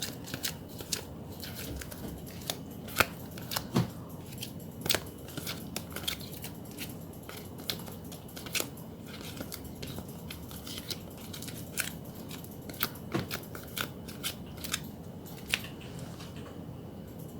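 Crisp, irregular clicks and snips of photocards and their plastic or paper packaging being handled and sorted by hand, a few to several a second.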